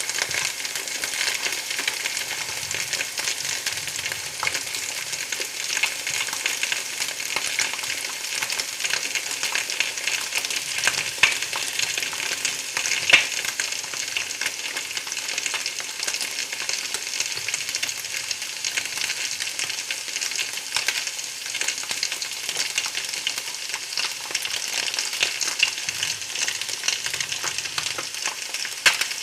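Food frying in hot oil in a pan: a steady sizzle full of small crackles, with a couple of louder pops partway through.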